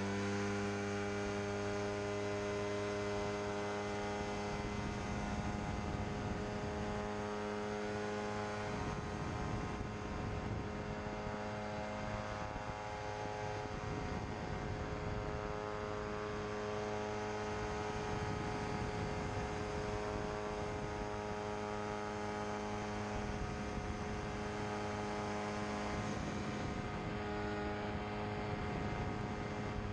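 Pterodactyl Ascender II ultralight's engine and propeller droning at a steady throttle setting, holding one even pitch, over a steady rush of air noise.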